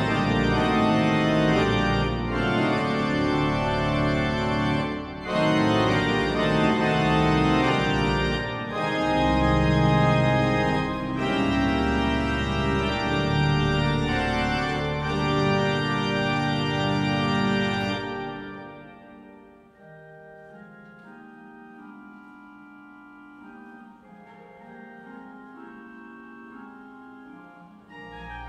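Church pipe organ playing loud, full sustained chords with deep pedal bass, then a little past halfway dropping to a much quieter, softer registration.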